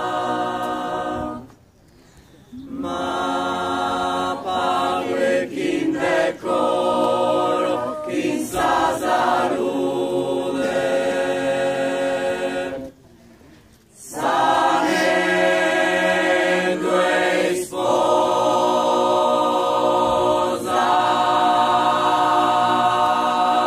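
Choir singing in long sustained phrases. There are two short breaks, about two seconds in and about thirteen seconds in.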